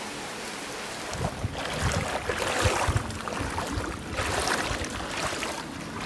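Footsteps wading through floodwater: irregular sloshing splashes starting about a second in, over a steady hiss of rain.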